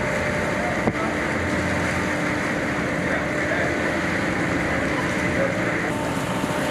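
Outboard motors of Zodiac combat rubber raiding craft running steadily as the boats pull away from the ship, over a steady rushing noise. A brief knock about a second in.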